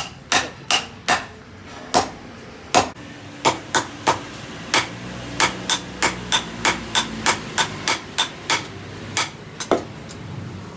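Hand hammer striking steel on an anvil, forging a knife blade: ringing metallic blows, sparse and uneven for the first few seconds, then a steady run of about three blows a second.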